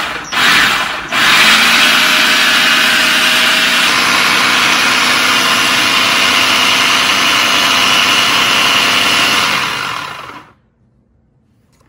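Countertop blender motor pureeing a hot mango and jalapeño sauce: one short pulse, then a steady run of about nine seconds. It switches off abruptly about ten and a half seconds in.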